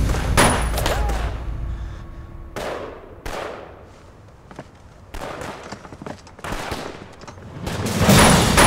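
Gunfire in a staged gunfight: single pistol shots at irregular intervals, about a second or more apart, growing louder and denser near the end.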